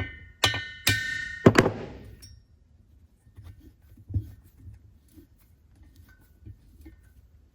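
A hammer tapping on the valve spring collar of a Norton Manxman 650 cylinder head: four sharp metallic taps in the first two seconds, each ringing briefly, to free the stuck collar. Faint small clicks of parts being handled follow.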